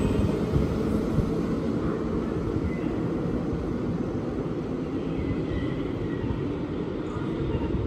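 Keihan 2600 series electric train pulling away from the station, a steady low rumble that fades slowly as it recedes down the line.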